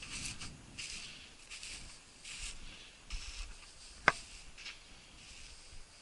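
Footsteps crunching through snow and dry grass stalks at a walking pace, a soft swish with each step, with a single sharp click about four seconds in.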